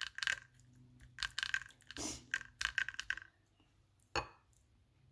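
A spoon clinking and scraping in a series of quick taps as cooked lentils are scooped and spread onto a crisp tostada shell, with one last tap about four seconds in.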